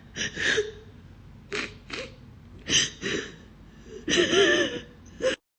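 A woman crying: short gasping, sniffling sobs, then a wavering wail about four seconds in, cut off abruptly near the end.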